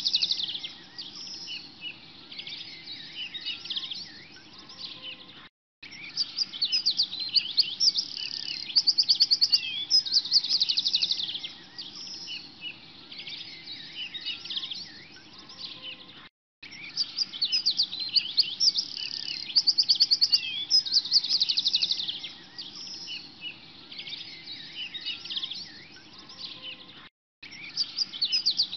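Many small birds chirping and trilling in a dense chorus of high calls, some in fast even trills, over a faint low steady background. The sound cuts out for a moment three times and resumes at once.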